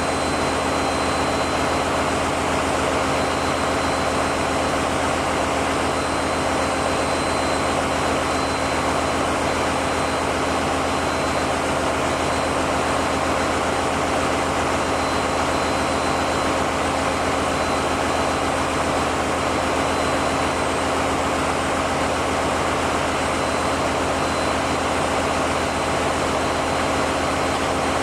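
Steady, loud engine-room noise of running diesel generator engines, an unbroken machinery din with a deep hum and a thin high whine.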